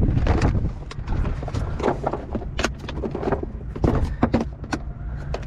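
Irregular sharp knocks and clicks of handling on a fishing boat: gear, hull and a landed fish being dealt with. They sound over a low steady rumble.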